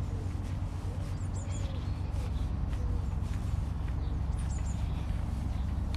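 Footsteps of someone walking along a footpath, about two steps a second, over a steady low rumble. A bird chirps briefly twice, about a second in and again near the end.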